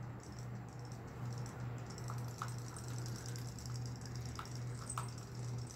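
Battery-powered robotic swimming fish toys running in a plastic bowl of water: a steady low motor hum with light, irregular ticking as their tails flap.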